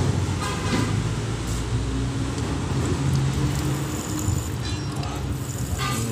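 Daikin ceiling-cassette drain pump running submerged in a bucket of water, a steady low hum under street traffic rumble. It is pumping weakly, where it should be strong: a sign that the pump is failing.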